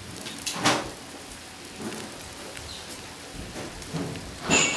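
Charcoal fire in an irori hearth crackling with a steady hiss, iwana grilling on skewers around it, with a few sharper snaps, the loudest near the end.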